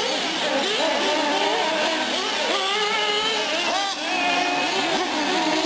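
Several nitro RC cars' small glow engines running on a dirt track, their high-pitched whines overlapping and swinging up and down in quick revs as the cars accelerate and brake through the corners.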